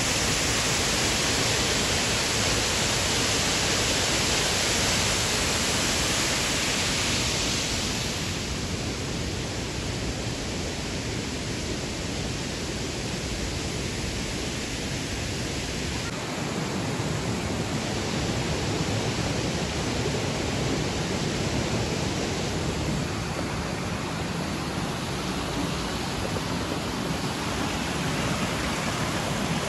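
Steady rush of water: a rocky stream running over stones and water splashing down into a pool. The hiss turns a little softer about eight seconds in.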